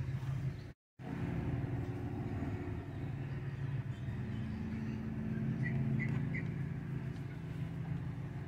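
A steady low machine hum, broken briefly by an edit just under a second in, with three short faint chirps about six seconds in.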